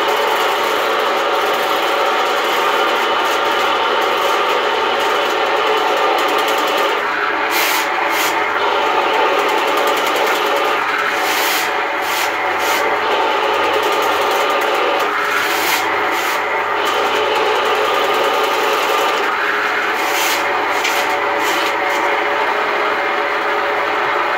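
RIDGID K-60 sectional sewer machine running steadily, turning its 7/8-inch cable to clear a clogged areaway drain, with short noisy bursts from the spinning cable every few seconds.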